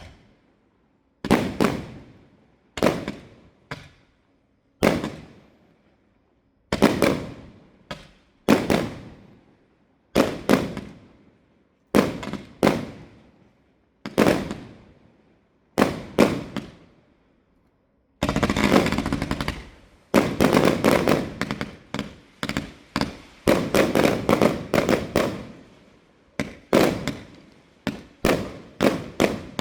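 Fireworks going off: sharp single bangs every second or two, each fading away in echo, then past the middle a dense barrage of rapid bangs and crackles.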